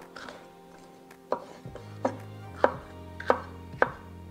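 Chef's knife cutting a red bell pepper into pieces on a wooden cutting board: about six separate, unhurried strokes, each a sharp tap of the blade on the board.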